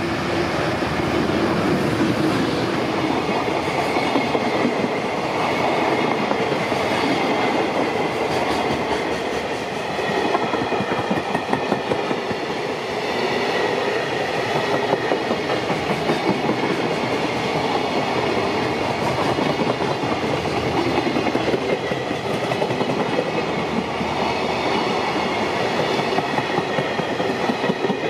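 A long freight train of loaded container flatcars rolling past at speed: a continuous rumble with a regular clickety-clack as the wheels cross rail joints.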